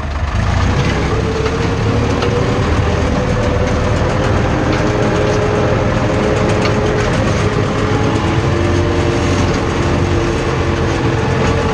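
Farm tractor engine running steadily under load, heard from inside the cab while it pulls a mounted potato hiller through the rows, with a steady whine over the engine note.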